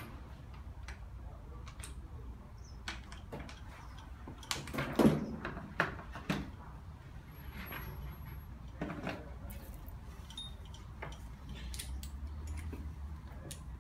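Scattered clicks and metal clunks from handling and turning an engine hung on a steel chain, with a burst of louder knocks about five seconds in, over a low steady hum.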